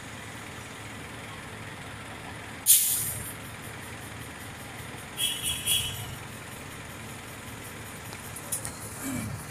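Bus air brakes letting off air: a sudden loud hiss about three seconds in that quickly dies away, then a few shorter hisses a couple of seconds later, over the steady low running of the bus engine.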